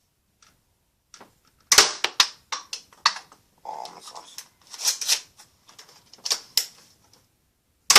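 Plastic clicks and clatter of a toy dart blaster being handled and worked: one loud sharp click just under two seconds in, then a string of irregular clicks and short rattles.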